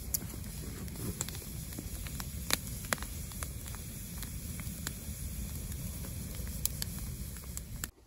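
Wood campfire of brushwood and boards burning, a steady low rush with scattered sharp crackles and pops.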